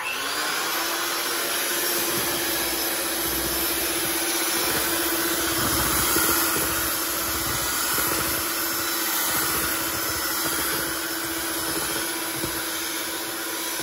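Cuisinart electric hand mixer switching on and running steadily at medium speed, its beaters whirring through cake batter in a stainless steel bowl, with an even motor hum.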